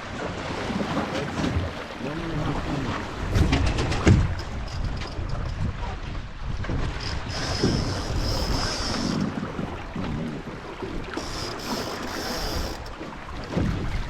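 Wind buffeting the microphone and water washing along the hull of a Melges 15 sailing dinghy under way, with a couple of sharp knocks about three to four seconds in.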